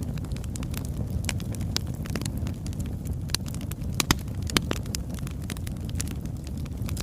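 Birchwood campfire burning: a steady low rumble of flames with irregular sharp crackles and pops, a few louder pops about four and four and a half seconds in.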